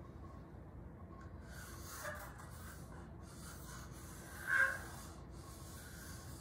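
Faint rubbing and scratching of a pencil on parchment paper as it traces around a round metal cake pan. About four and a half seconds in there is one short, louder pitched squeak.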